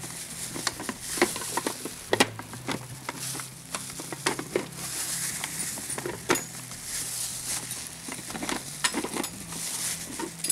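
Kitchen utensils and containers being handled and set down on a counter: irregular light clicks and knocks with a soft rustling hiss between them, over a low steady hum.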